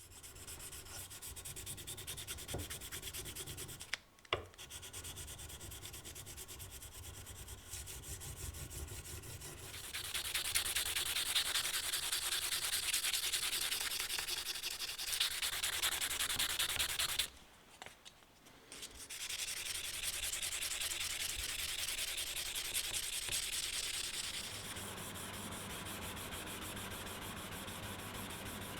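Steady abrasive sanding, with a low hum underneath. It grows louder about ten seconds in, stops briefly a little past halfway, then resumes.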